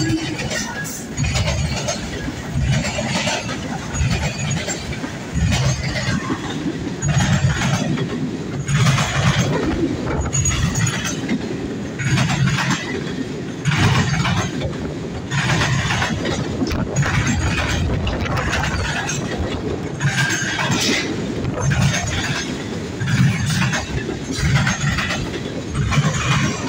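Freight train rolling past, its cars' wheels clattering rhythmically over the rail joints.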